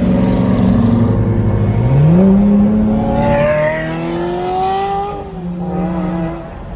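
Sports car engine revving and accelerating hard, its pitch jumping up about two seconds in, then climbing steadily before fading near the end.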